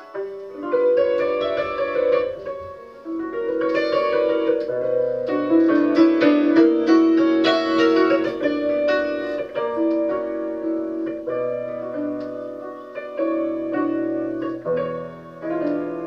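A 1987 Bohák concert cimbalom played with hammers: fast repeated strokes and struck notes ringing on over each other, with a deeper bass note coming in about five seconds in and again near the end. It is played as a sound test of the instrument.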